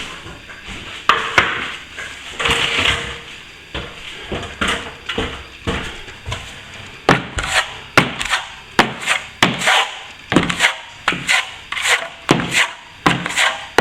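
Hand plastering tool scraping across a wall, working cornice cement into an opened crack. A few longer strokes give way to quicker strokes at about two a second in the second half.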